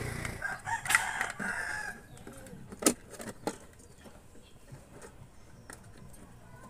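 A rooster crowing for about a second and a half near the start, then a few sharp plastic clicks and knocks as the megaphone's housing is pressed back together by hand.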